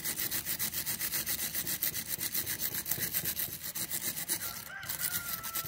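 Hand wire brush scrubbing a steel brake pad guide clip clamped in a bench vise, in fast back-and-forth strokes at about seven a second, scouring off old brake dust and corrosion.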